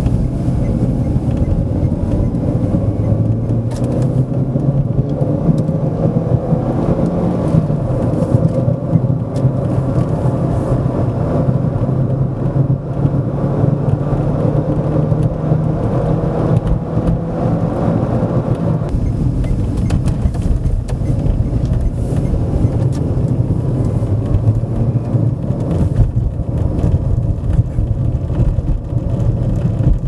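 Renault Sandero on the move: steady road and tyre noise with a droning hum, which the owner puts down to a worn wheel hub bearing. The higher part of the noise falls away about two-thirds of the way through.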